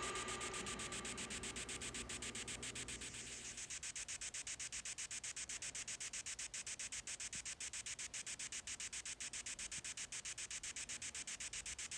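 Faint static hiss pulsing rapidly and evenly, about eight times a second, after a fading sound in the first moments.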